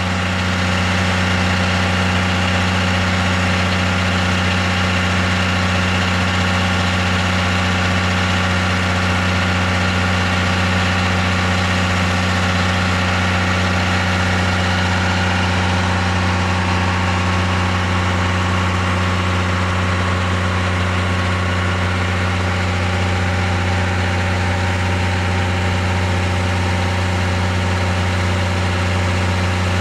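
Railway diesel engine idling, a steady unchanging hum.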